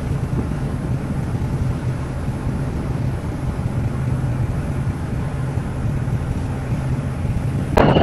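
Boat under way: a steady low engine drone, with water rushing and churning along the hull.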